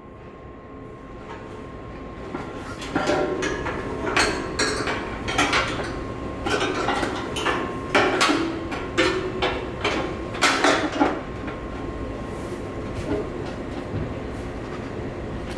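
Body-shop work on a car's front end: a run of knocks and metallic clanks from about three seconds in to about eleven seconds, over a steady low hum with a faint steady whine.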